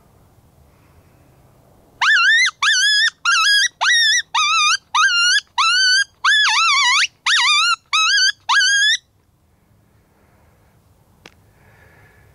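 Coyote call close to the microphone, sounding a run of about fourteen short yips over some seven seconds, each rising sharply and then wavering, in imitation of coyote yipping.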